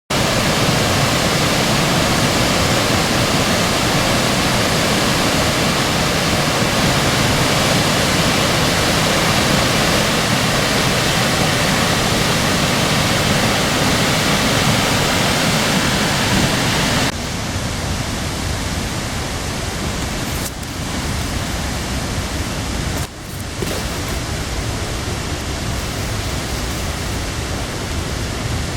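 Waterfall pouring, a loud steady rush of falling water. About two thirds of the way through it becomes somewhat quieter and less hissy, with a couple of brief dips after that.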